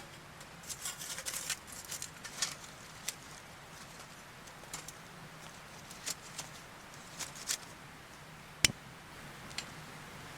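Light metallic clicks and clinks, scattered and irregular, as the steel panels of a Firebox G2 5-inch folding camp stove are handled and set up, with one sharper click near the end.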